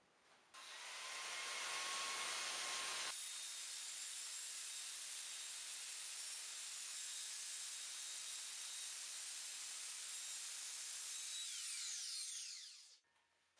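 Makita corded circular saw spinning up and cutting through plywood with a steady whine, then winding down with a falling whine near the end.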